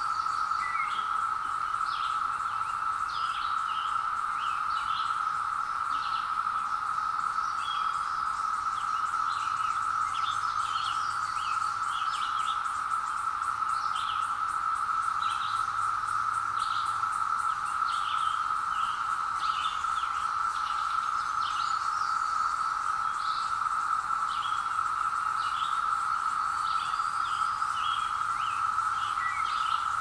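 Chorus of 17-year periodical cicadas: a steady, unbroken drone across the woods, with songbirds chirping over it throughout.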